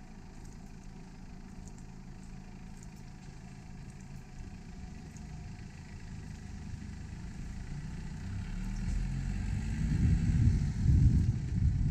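A motor vehicle running, a low rumble that grows much louder over the last few seconds as it comes close.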